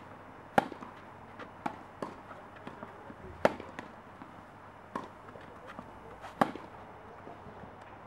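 Tennis rally: a series of sharp hits of the ball on racket strings. The three loudest come about three seconds apart, with fainter hits and ball bounces in between.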